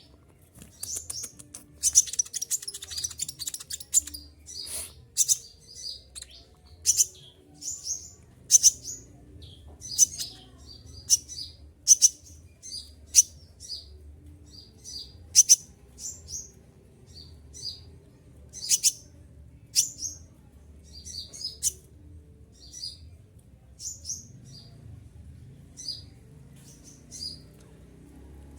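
Konin (kolibri ninja) sunbird calling: short, sharp, shrill high-pitched notes repeated every half second to a second, with a quick run of rapid twittering about two seconds in.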